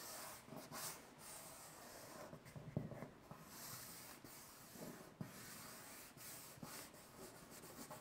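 Faint rubbing of fingers pressing a vinyl sticker onto an aluminium boat hull, with a few soft knocks.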